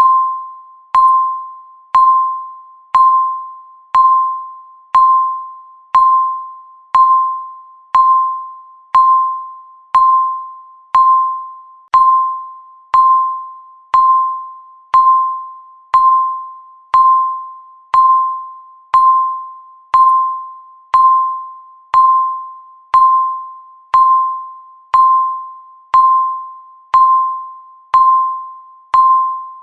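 Digital countdown timer's tick sound, once every second: each tick is a sharp click with a ringing, bell-like tone that fades away before the next one.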